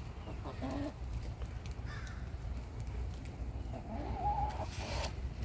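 Hens calling and clucking a few times, with a longer call about four seconds in, over a steady low rumble.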